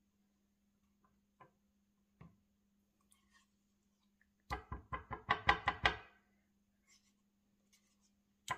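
Plastic spoon dishing sour cream into a glass measuring cup: a few faint taps and scrapes, then about a second and a half of quick knocking, about ten knocks, as the spoon is rapped against a container to shake the sour cream off.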